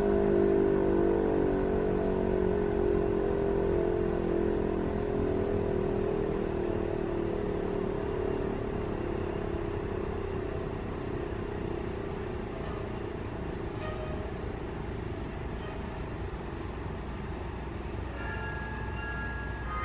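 Sentry 3V8-H outdoor warning siren winding down, its tone slowly falling and fading away over about ten seconds. Crickets chirp steadily, about twice a second, underneath.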